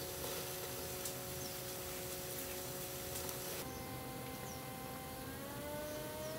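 Electric pottery wheel motor whining steadily as the wheel spins. The whine's pitch rises during the last second or so.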